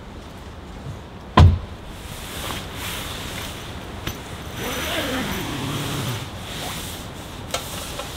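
A single heavy thump about a second and a half in, then a few seconds of rubbing and scraping with a short falling squeak as a tent guy line is handled.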